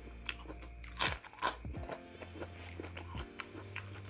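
Crisp kerupuk crackers crunching as they are chewed and handled, with two loud sharp crunches about a second in and half a second later and smaller crackles between.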